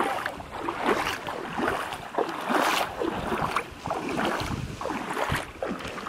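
Wind buffeting the microphone on open water, with water splashing and indistinct voices.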